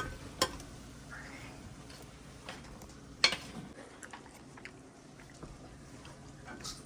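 A few scattered taps and clicks of a cooking utensil against a pan while ground beef is stirred, the loudest about halfway through, over a low steady kitchen background.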